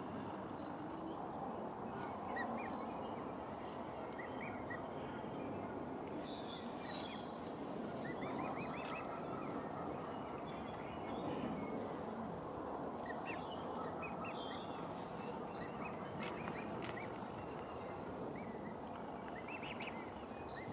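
Steady background hiss with brief high bird chirps and calls scattered through it.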